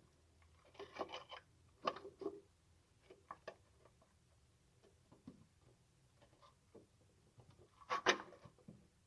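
Irregular rubbing, scraping and light knocks of things being handled by hand, with louder scrapes about a second in, about two seconds in and near the end.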